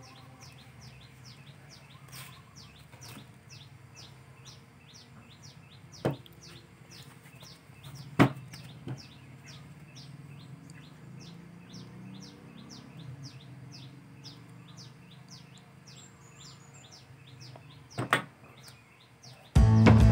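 High, evenly repeated chirping, about two or three chirps a second, with a few sharp knocks of drill parts being handled on the bench. Music comes in near the end.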